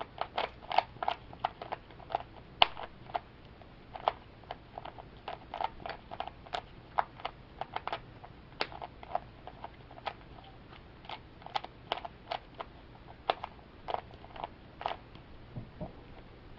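Grey-plastic Rubik's 3x3 cube turned fast by hand: irregular plastic clicks and clacks of the layers snapping round, several a second. The centre pieces of this picture cube are being turned a quarter turn at a time into their right orientation.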